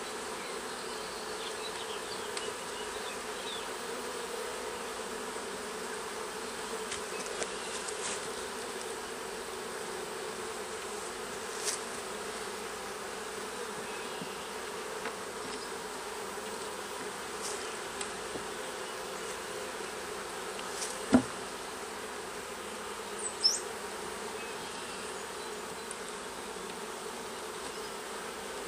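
Honeybees of an open hive buzzing in a steady hum, with a few short knocks and clicks, the loudest about 21 seconds in.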